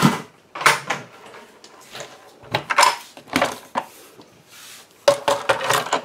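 A Spellbinders BetterPress letterpress press and its platen being handled and slid into place, giving a string of short plastic knocks, clunks and scrapes with brief pauses between them.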